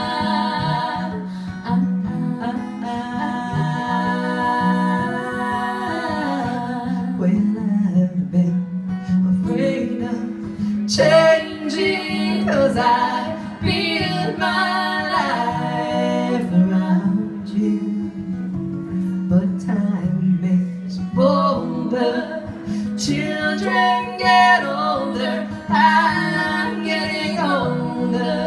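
Acoustic guitar played live, with a woman's voice singing a wordless melody over it in place of an instrumental guitar solo.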